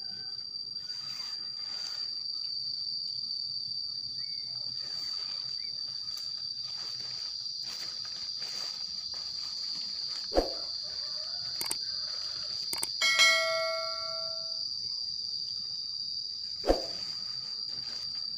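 Steady high-pitched insect drone, over faint rustling of tent fabric. There are two sharp knocks, about ten seconds in and near the end, and a brief ringing ding about thirteen seconds in.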